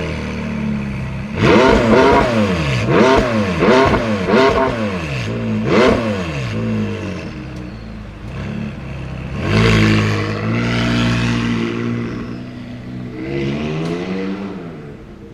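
High-performance car engine idling, then revved hard in a quick run of throttle blips, each rising and falling in pitch, followed by two more separate revs. The level falls away near the end.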